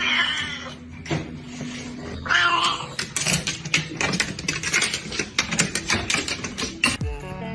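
A cat meowing twice, at the start and about two and a half seconds in, followed by a quick run of clicks and rattles for about four seconds.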